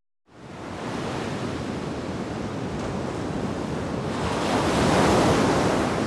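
Heavy ocean surf breaking on rocks, a steady rushing wash that fades in just after the start and swells to its loudest about five seconds in.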